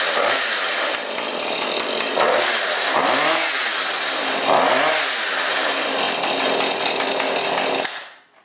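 Husqvarna 435 Rancher two-stroke chainsaw running loud, its engine speed rising and falling several times, then shut off about eight seconds in.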